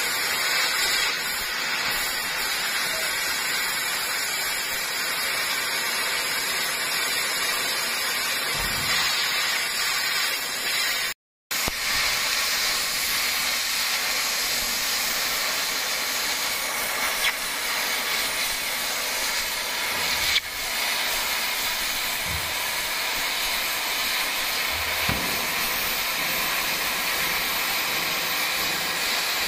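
Gas cutting torch hissing steadily as it cuts through container sheet steel, with a brief dropout about eleven seconds in and a few faint knocks.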